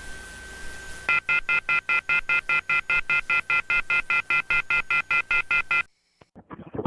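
A steady high electronic tone, then about a second in a telephone off-hook warning tone begins: a loud chord of high beeps pulsing about five times a second, which cuts off suddenly about a second before the end. It is the signal that a phone handset has been left off the hook.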